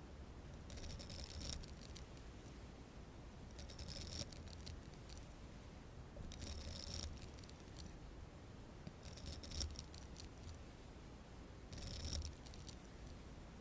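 Makeup being applied close to the microphone: five soft, bristly brushing strokes, each about a second long, coming about every three seconds.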